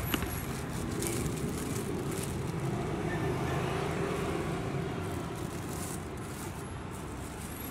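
Street background noise: a steady hum of passing road traffic.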